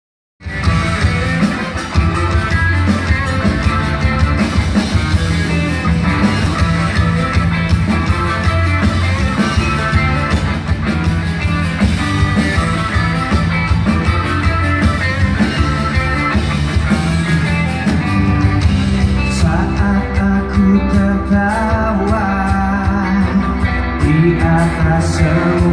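Live pop-rock band with a male singer, heard from the audience in a large arena: steady drums, bass and guitar under the vocal.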